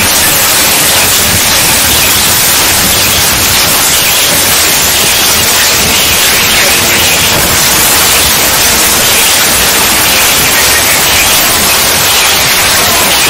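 Loud, steady static: a harsh, even hiss that doesn't change.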